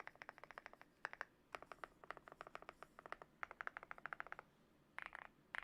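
Typing on a GMK67 mechanical keyboard with lubed KTT Matcha switches, XDA-profile keycaps and a foam- and tape-modded case. The keystrokes come in fast runs of many strokes, each run about a second long, with short pauses between them.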